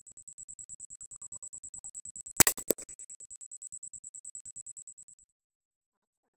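A suppressed .44 Magnum subsonic shot: one sharp crack about two and a half seconds in, followed a quarter second later by a second, weaker crack. Throughout, a rapid high-pitched electronic pulsing, about nine pulses a second, runs and stops about five seconds in.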